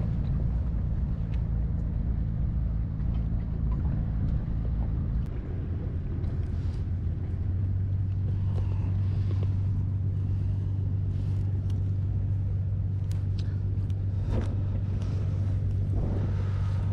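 Strong wind buffeting the microphone: a steady low noise, with a few faint clicks from handling near the end.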